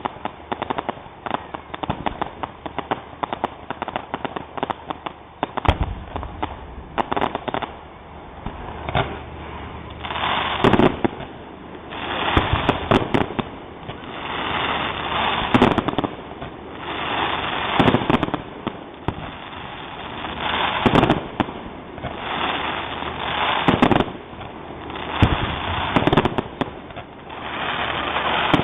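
Fireworks finale: a dense run of rapid crackling pops for the first several seconds, then large shells bursting about every two to three seconds, each boom trailing off into crackle.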